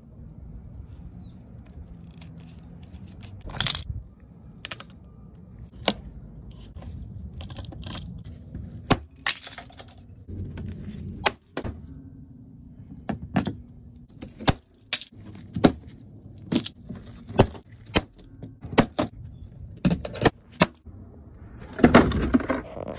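Irregular series of sharp plastic and metal clicks and clinks from a glue-tab dent repair kit's pulling tabs and cross-bar puller being worked, coming more often in the second half, over a low steady rumble.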